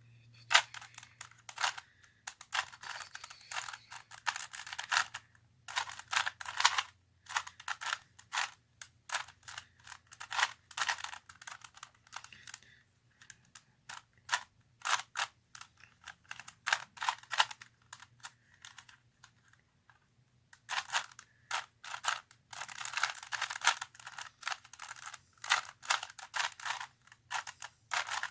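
Plastic 3x3 Rubik's cube being solved by hand: its layers turning and clacking in quick runs of clicks, with short pauses between runs.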